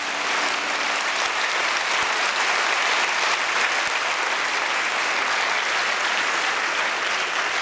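Theatre audience applauding: a steady, dense wash of hand clapping, with the last held notes of the music fading out beneath it in the first second.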